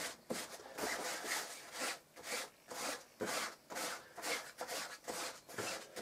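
A block of paraffin and beeswax rubbed in quick back-and-forth strokes over a jacket's fabric, about two to three scratchy strokes a second: the wax being worked into the cloth to waterproof it.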